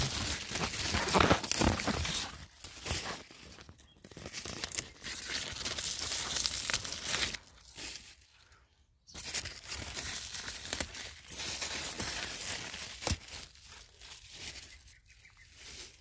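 Cucumber leaves and vines rustling and crackling against the phone as it is pushed in among them, with irregular crinkly handling noise; it goes quiet for about a second partway through.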